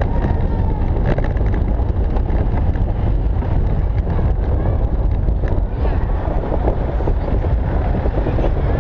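Velomobile rolling over city paving, a steady rumble of road noise carried through its shell, with wind on the microphone.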